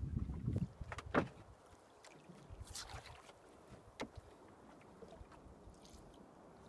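Small wooden fishing boat drifting with its engine off: low thumps of water and handling against the hull in the first second or so, a sharp click about four seconds in, then a faint steady wash of sea and wind.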